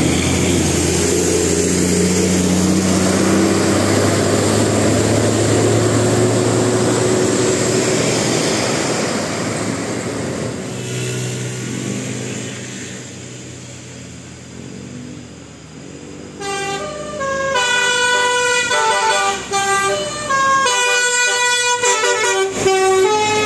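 A bus running loudly close by, its sound fading over about ten seconds. Then, a little past halfway, a bus 'telolet' multi-tone air horn plays a quick melody of clear notes stepping up and down, with short breaks, until the end.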